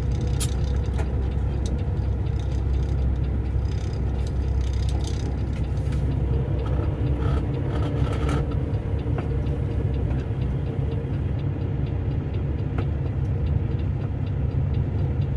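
Semi-truck's diesel engine idling, a steady low rumble heard from inside the cab while the truck is stopped.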